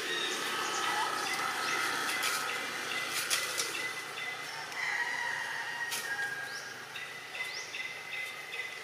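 Outdoor ambience with birds chirping: several high, thin calls, some short rising chirps, and a few sharp clicks.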